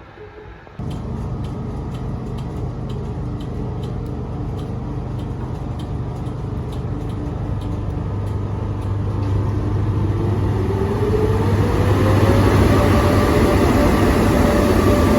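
Electric train starting abruptly about a second in with a steady low hum, then a motor whine rising in pitch from about ten seconds in and levelling off as the train pulls away and grows louder.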